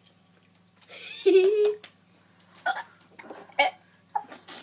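Children's reactions to biting into a BeanBoozled jelly bean that may be Stinky Socks: a loud held disgusted groan about a second in, then short gagging and giggling noises.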